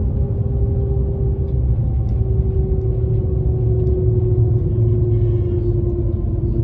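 Cabin noise inside the Shanghai Transrapid maglev train: a steady low rumble with a hum that slowly falls in pitch as the train slows.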